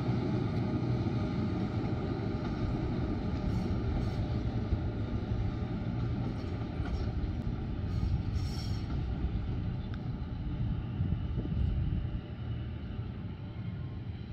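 Gornergratbahn metre-gauge electric rack-railway train pulling out and running away along the track: a steady low rumble that eases off a little near the end.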